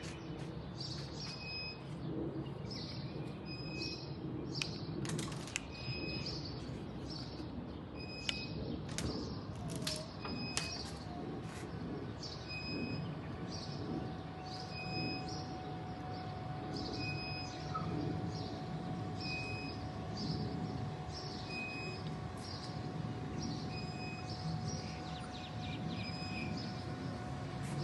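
Electric linear actuators lifting a hinged RV side wall panel open, heard as a low steady hum with a steady higher tone joining about halfway through. A bird chirps short repeated calls about once a second throughout.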